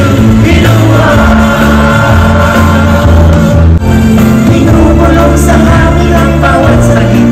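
Loud live band music with singers on microphones.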